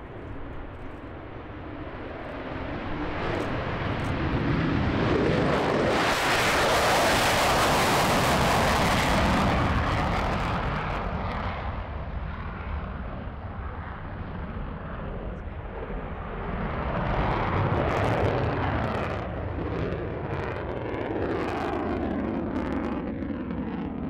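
Lockheed Martin F-35 Lightning II's single afterburning Pratt & Whitney F135 turbofan at full afterburner on takeoff and climb-out. The jet noise builds over a few seconds, is loudest and harshest a quarter to two-fifths of the way in, eases off, then swells again briefly as the jet climbs away.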